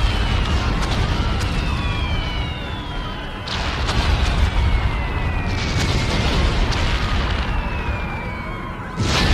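Battlefield sound effect: a continuous low rumble of explosions, with fresh blasts about three and a half seconds in, about two seconds later, and again just before the end. High whistling tones slowly fall in pitch over the rumble.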